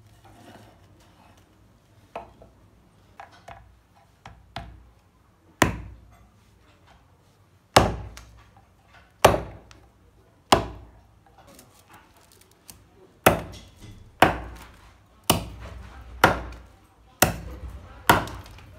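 A large curved chopping blade is brought down again and again onto a wooden beam, cutting through rubber tubing and thin sticks laid on it. There are a few light chops at first, then about ten sharp, loud chops roughly a second apart.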